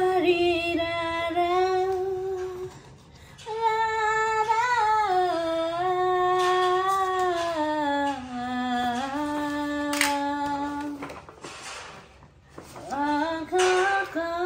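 A woman humming a slow tune in long held notes that glide gently up and down, pausing twice, with one sharp click about ten seconds in.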